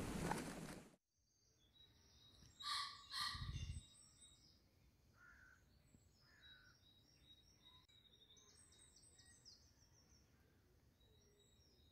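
Wind buffeting the microphone cuts off abruptly about a second in. Then two loud harsh caws from a crow come a few seconds in, followed by faint, high chirping birdsong.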